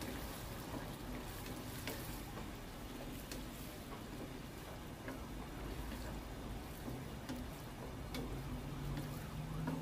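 Vegetables in sweet and sour sauce quietly sizzling and simmering in a granite-coated wok as the sauce thickens, stirred with a wooden spatula that scrapes and taps the pan a few times.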